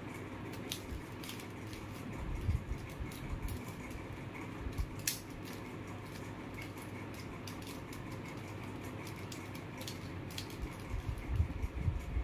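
Plastic mirror cube being turned by hand: irregular clicks and clacks of its layers turning and snapping into place, with a few soft low knocks from handling.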